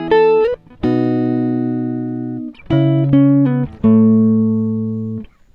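Background music: an instrumental melody of short notes and two long chords that ring and slowly fade.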